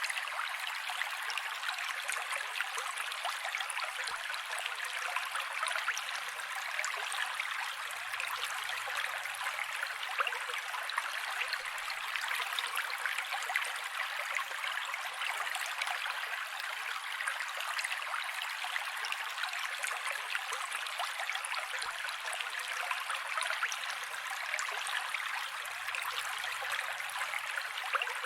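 Mountain creek water rushing and splashing over rocks, steady and unbroken, with no deep rumble.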